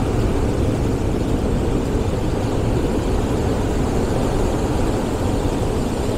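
Ocean surf washing over a rocky shore: a steady wash of breaking waves and foaming water running over the rocks, heavy in the low end.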